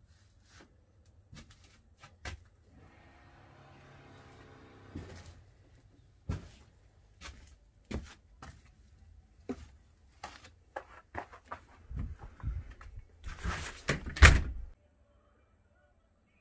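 Footsteps and knocks of someone moving through a wooden shed and out through a door, with a drawn-out creak a few seconds in. A louder cluster of knocks and a rattle comes near the end, then the sound cuts off abruptly.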